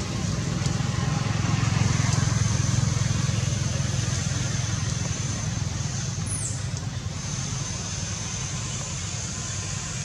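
Low engine rumble of a motor vehicle, swelling a second or two in and then slowly fading. A short high whistle falls in pitch about six and a half seconds in.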